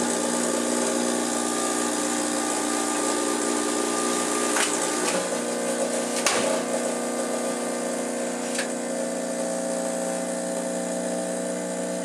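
Tutto espresso machine's pump humming steadily as it brews an espresso shot, with a few short clicks along the way. The hum's pitch shifts slightly about five seconds in.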